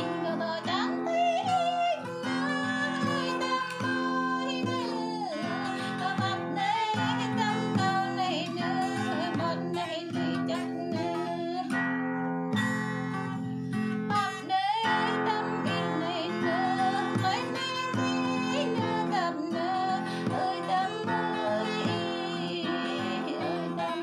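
Acoustic guitar played as chordal accompaniment under a voice singing a melody.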